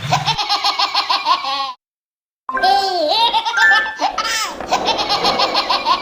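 A baby laughing in quick, rhythmic giggles. The laughter breaks off into complete silence for under a second, about two seconds in, then starts up again.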